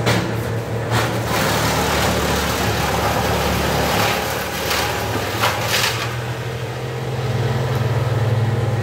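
Steady engine hum from the tree crew's machines, the bucket truck and brush chipper, running at idle. Several short bursts of rushing noise come in the middle.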